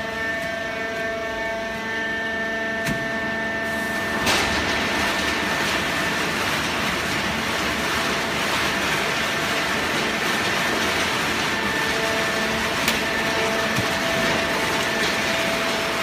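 Automatic horizontal cardboard baler running, its hydraulic unit giving a steady multi-toned whine. About four seconds in, a knock is followed by a louder, even rushing noise that continues, with another sharp knock later on.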